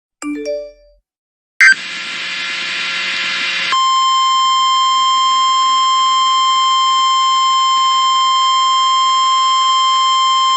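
A short rising three-note chime, then a sharp click and about two seconds of harsh buzzing. Then a steady high alert tone starts and holds without a break: the warning alarm tone of a NOAA Weather Radio / Emergency Alert System broadcast, which comes before a warning is read out.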